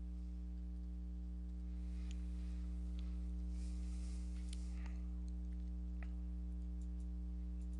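Steady electrical mains hum in the recording. Between about two and five seconds in, faint scratching and light taps of a pen on a drawing tablet can be heard, with a few small clicks.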